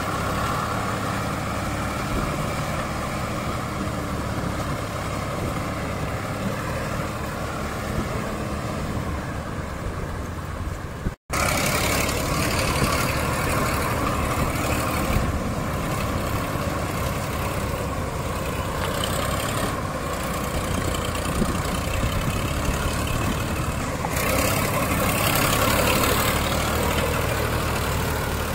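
Two tractor diesel engines, a Sonalika DI-740 and a Mahindra 255, running steadily as one tows the other with a loaded trolley through mud. The sound drops out for an instant about eleven seconds in.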